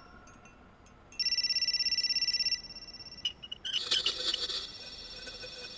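A mobile phone's electronic ringtone rings for about a second and a half, pulsing. About three seconds in, a tap is opened and gives a few clicks and a brief sputtering hiss instead of a steady flow of water, a sign that the water pump has failed.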